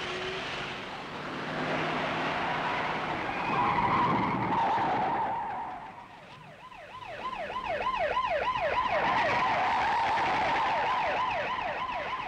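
A car speeding up with its engine and tyres rising in level. From about halfway a loud, high wail wavers rapidly up and down, about three times a second.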